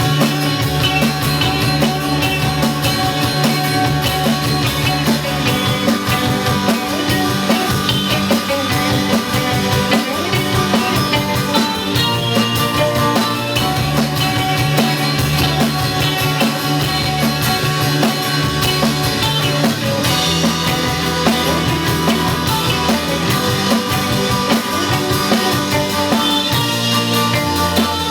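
Indie pop band playing live in an instrumental stretch of the song: drum kit keeping a steady beat under guitar.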